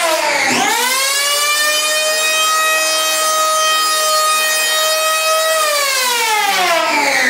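Accurate electric power planer whining at high speed as it cuts a foam surfboard blank. Its pitch dips and climbs back about half a second in, holds steady, then drops again near the end.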